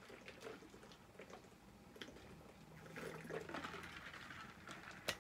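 Faint gulping and swallowing as a person drinks steadily from a large bottle, with soft clicks of the mouth and bottle.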